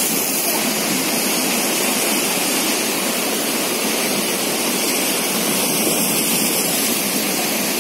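Steady rush of sea waves breaking and washing over a rocky shore, an even noise with no distinct events.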